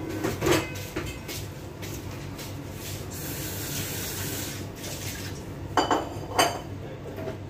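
Dishes clinking and clattering in a kitchen sink, with tap water running for a second or two midway and two louder clinks of crockery near the end.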